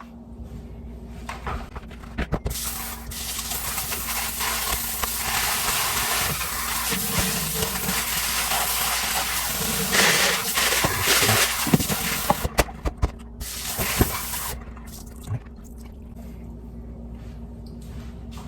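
Kitchen sink tap running as raw steak is washed under it, the water splashing for about ten seconds, then a few sharp knocks and a brief second run of water near the end.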